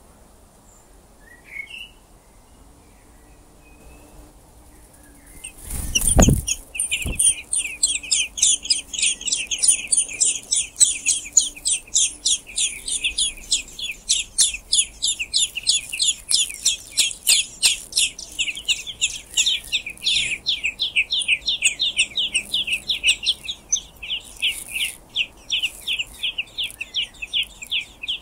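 Common blackbird nestlings begging as a parent comes to feed them: a brief loud flutter about six seconds in, then a rapid, insistent chorus of high peeping calls, about five a second.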